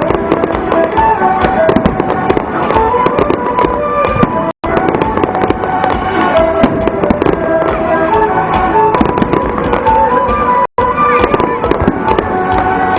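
Aerial fireworks bursting and crackling in quick succession under loud music with a held melody. The sound cuts out completely for an instant twice.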